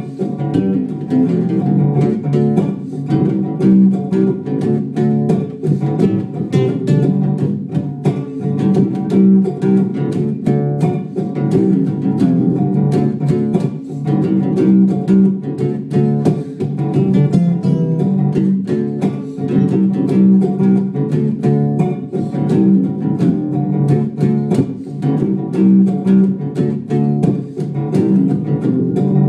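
Acoustic guitar strummed in a steady reggae rhythm, with evenly repeating chord strokes.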